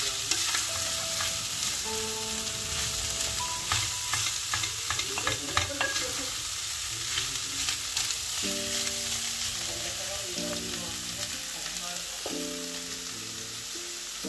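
Freshly added chopped meat sizzling in a stainless-steel pan as a wooden spatula stirs it, with scrapes and clicks of the spatula against the pan, most of them in the first half.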